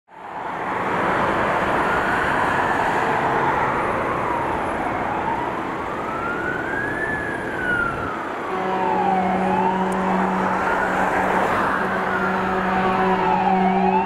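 Fire engine's Gamet GAM 150 electronic siren on a slow wail, rising and falling about every four and a half seconds, over traffic noise. From about two-thirds of the way in, the 2012 Mercedes-Benz Atego fire engine's air horn joins with a long, steady low blast under the wail, sounded to clear the intersection.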